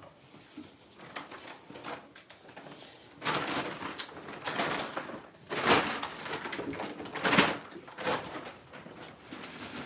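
Scuffling and rustling of young goats tussling, with two louder bumps a little over a second apart past the middle.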